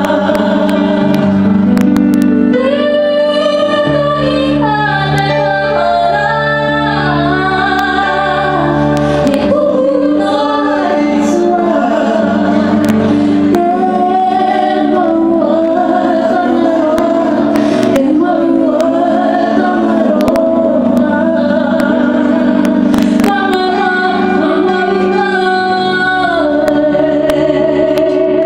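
Two women singing live into microphones over an electric stage piano playing held chords that change every few seconds.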